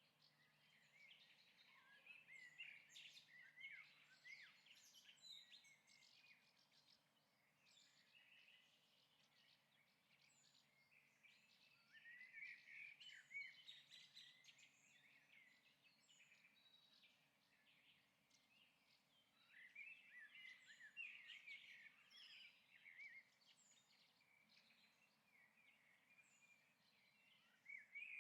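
Faint birdsong: phrases of quick chirps and short whistled glides, coming in bursts of a few seconds with quieter gaps of several seconds between them.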